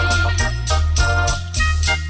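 Electronic organ playing an instrumental melody of held notes over a steady bass line and a regular drum-machine beat.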